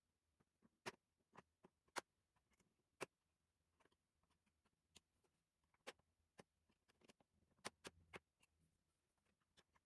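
Faint, irregular small clicks and taps of hands and a tool working on a plastic laptop case. Three sharper clicks come about a second apart in the first few seconds, and another cluster comes near the end.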